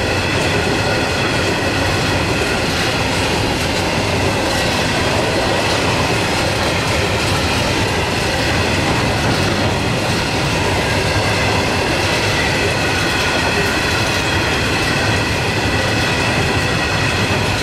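A long rake of steel coal hopper wagons rolling past close by: a steady rumble and clatter of wheels on rail, with a high squealing tone from the wheels held over it.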